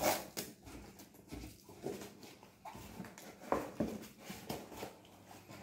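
Packing tape being peeled off a cardboard box and the box's flaps pulled open: a string of irregular scrapes, rips and rustles of cardboard and tape.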